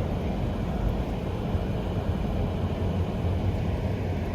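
Steady low rumble of a car driving slowly: engine and tyre noise.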